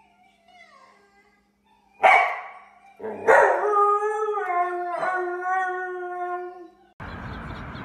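Samoyed howling: a sharp yelp about two seconds in, then one long, slightly wavering howl of about four seconds with a brief break in the middle. Near the end the sound cuts to a steady hiss.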